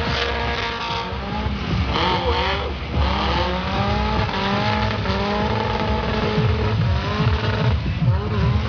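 Car engines running hard with tyres squealing in wavering, gliding tones, as cars spin and slide around an arena.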